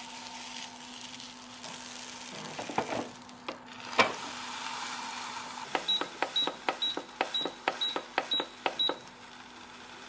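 Digital appliance control panel beeping seven times in quick succession, one short high beep with a click for each press of the button, as the setting is stepped from 1 up to 7. Before that come a few light clicks and one sharp knock about four seconds in.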